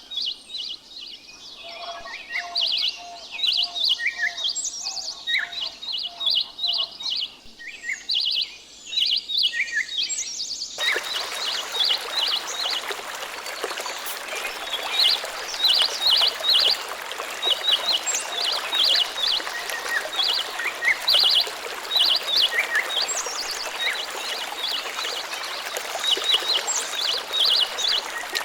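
Small birds chirping busily in short, quick bursts of high notes. A few seconds in, a lower note repeats about twice a second for several seconds. Partway through, a steady hiss of running water comes in abruptly under the chirping.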